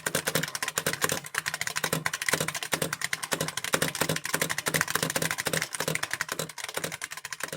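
Fast, continuous typing on a Brand New Model F reproduction keyboard, its buckling-spring keys clacking in a rapid stream of keystrokes.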